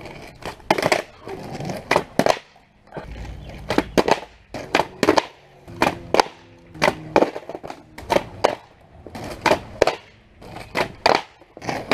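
Homemade wooden cruiser skateboard being flipped and landing on asphalt again and again: repeated sharp clacks of the deck and wheels hitting the ground, in clusters, with short rolling rumbles between them.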